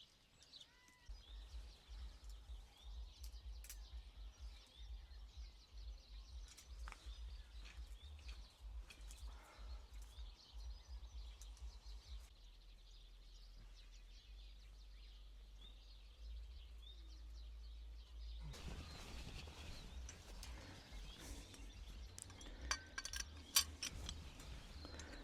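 Faint outdoor farm ambience: a low rumble with faint bird chirps now and then. Near the end it turns to a louder hiss with a few clicks.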